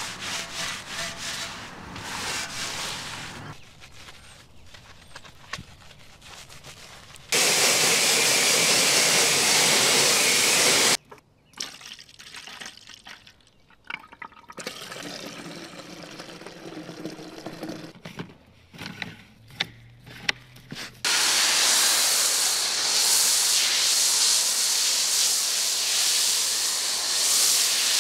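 Pressure washer spraying: a loud, steady hiss of water in two stretches of several seconds, each starting and stopping abruptly. Quieter, irregular handling sounds come before and between them.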